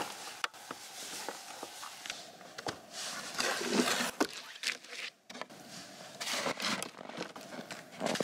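Snow crunching and scraping in irregular bursts, with sharp crackling clicks. The sound drops out briefly about five seconds in.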